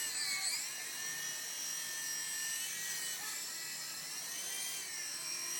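Blade mSR micro RC helicopter's small electric motor and rotor running with a steady high-pitched whine, the pitch dipping briefly near the start and again about three seconds in.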